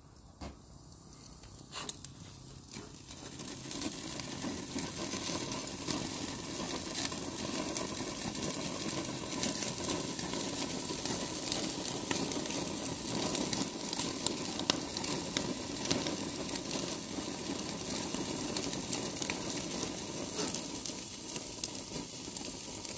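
Thick ribeye steak sizzling under the glowing top burner of an Otto Wilde overfired grill, searing its crust, with scattered crackles of spitting fat. After a faint click or two at the start, the sizzle builds over the first few seconds and then runs steady.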